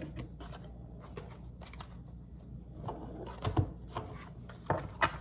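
Tarot cards being handled and shuffled over a wooden table: a run of light clicks and card snaps, with a few sharper taps about three and a half and five seconds in.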